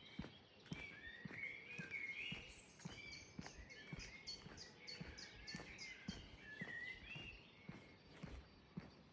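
Several birds singing and chirping, with a quick run of short high repeated notes in the middle. Soft footsteps of someone walking sound about twice a second underneath.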